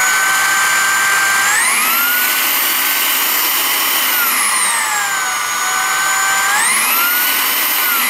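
RAWMID Modern RMV-01 cordless stick vacuum running on a carpet with its stiff brush head: a high motor whine that steps up in pitch about two seconds in, drops back around five seconds, and rises again near the end as the motor shifts between power levels, up to turbo. It cuts off suddenly at the end.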